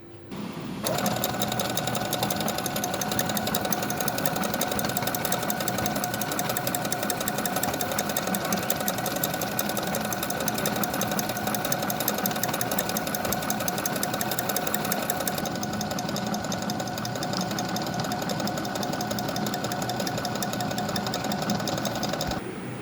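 Brother FS101 sewing machine sewing a decorative embroidery stitch at speed: a fast, even clatter of needle strokes over the motor's whir. It starts about a second in and stops just before the end.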